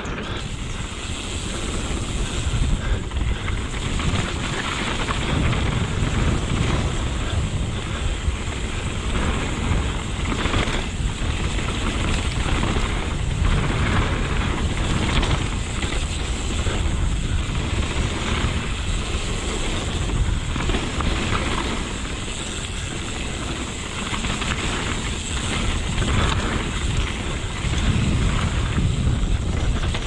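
Santa Cruz Megatower mountain bike rolling fast down a dirt and gravel trail, its tyres rumbling and rattling over loose stones in irregular knocks. Wind buffets the microphone throughout.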